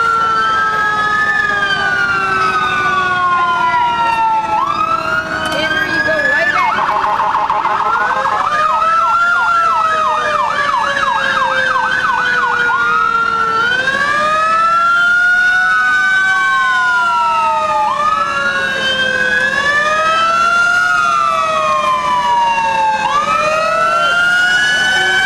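Several emergency-vehicle sirens wailing together, their pitches rising and falling out of step with one another. About six seconds in, one switches for a few seconds to a fast yelp.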